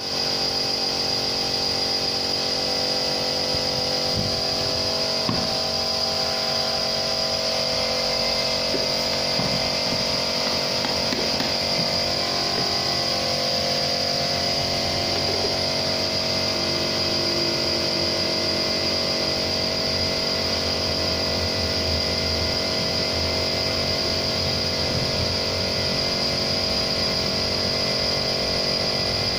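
A small motor-driven machine running steadily, with a constant high whine.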